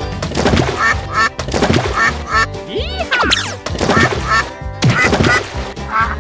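Comic duck-quack sound effects in short, quickly repeated bursts over playful background music, with a couple of rising, whistle-like glides about halfway through.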